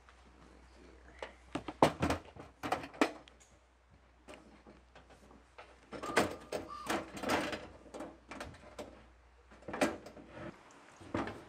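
Knocks, clicks and clunks from a green metal camp stove being handled: it is set on a table and its latches and lid are opened. The sounds come in several short clusters of sharp taps.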